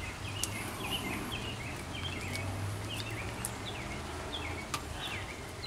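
Small birds chirping outdoors, with short falling chirps several times a second over a steady low hum.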